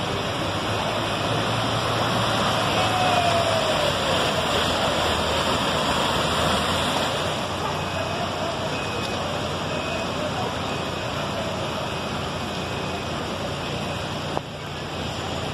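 Steady rushing noise of heavy rain and running floodwater in a city street, with traffic driving through the water.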